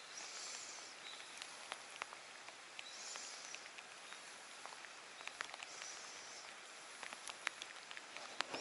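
Light rain falling on open water, a faint steady patter with scattered sharp drop ticks. A soft high hiss swells and fades about every three seconds.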